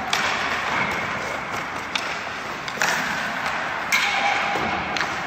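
Hockey sticks cracking against pucks during passes and shots, about five sharp cracks, some followed by a brief ringing tone. Underneath is a steady scrape of skates on ice, echoing in a large rink.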